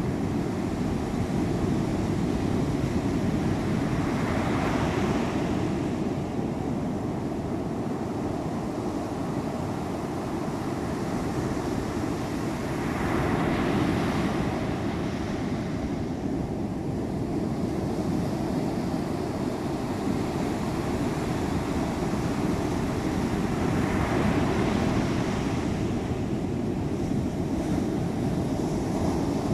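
Heavy storm surf breaking on a sand and pebble beach: a steady low rush of water, with a wave breaking and hissing up the shore about every nine or ten seconds. Wind buffets the microphone.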